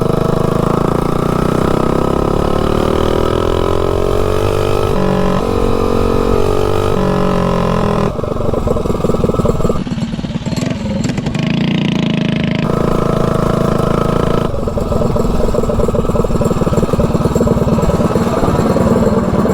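Tillotson 225cc single-cylinder mini bike engine running under load as the bike is ridden, its pitch rising over the first few seconds as it accelerates. The tone changes abruptly every few seconds, between higher and lower steady engine speeds.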